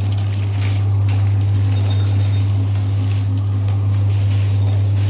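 Liquid pouch packing machine running: a loud, steady low hum with faint, irregular clicks and rattles from its mechanism.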